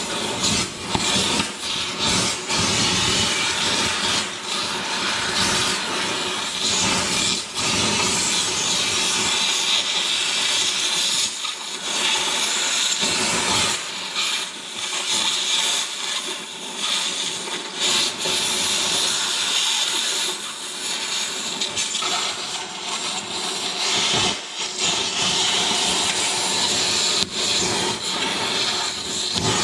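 Oxy-fuel cutting torch running with a steady, loud hiss as it cuts a stuck bearing out of a John Deere 568 round baler's drive roller, with a few brief dips.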